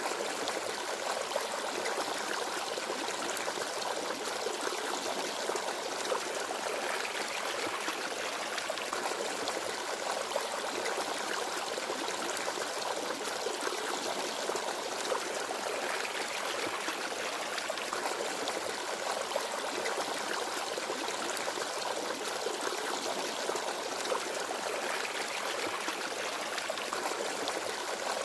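Forest stream: water babbling and trickling steadily over stones.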